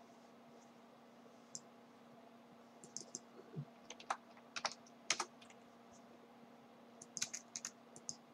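Computer keyboard typing in short bursts of keystrokes, with pauses of a second or two between the bursts.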